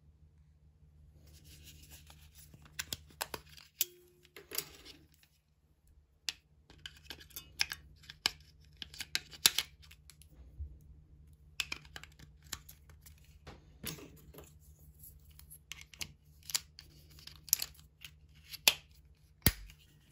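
Crinkling of wrapping near the start, then a run of sharp plastic clicks and taps as hands handle a projector remote control, fitting batteries and its battery cover.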